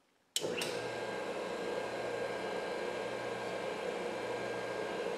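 Valve refacing grinder switched on about half a second in, with a click, then its electric motor and grinding stone running with a steady hum. The stone is spinning free, set back from the valve stem before it is fed in to touch.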